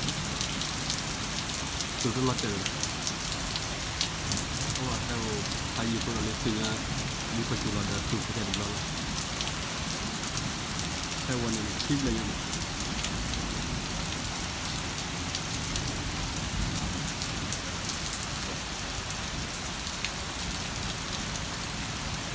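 Heavy rain falling steadily, an even hiss with scattered close drop ticks.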